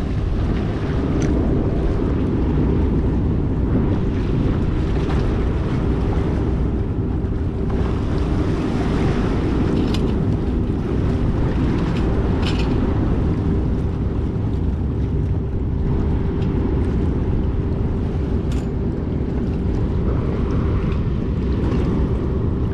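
Wind buffeting the microphone, with a steady hum running underneath and a few faint clicks about ten, twelve and eighteen seconds in.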